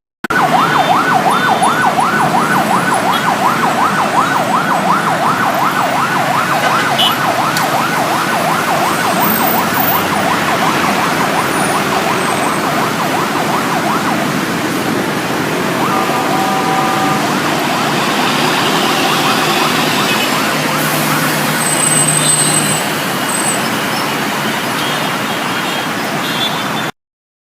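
Ambulance siren in fast yelp mode, rising and falling about two to three times a second, over heavy traffic noise. The siren fades out about halfway, and a short steady horn-like tone sounds a little later.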